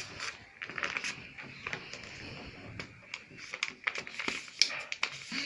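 Sheet of paper being folded by hand: crisp rustling and crinkling with many sharp little clicks and cracks as the thickened paper is creased.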